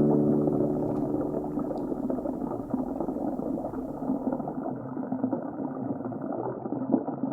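Aquarium water bubbling steadily, a continuous gurgling hiss. The last notes of a guitar die away in the first second.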